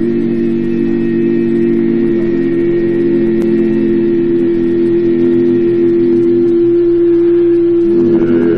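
Male barbershop quartet singing unaccompanied in close four-part harmony, holding one long chord. The lower voices move to a new chord near the end while the top note stays.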